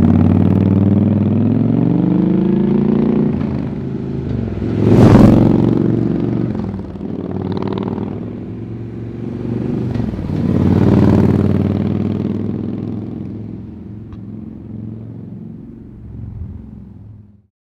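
Harley-Davidson Dyna Switchback V-twin running through Vance & Hines Switchback Monster Duals exhaust, accelerating hard in several runs with the pitch rising on each. The loudest surge comes about five seconds in, then the sound fades away and cuts off near the end.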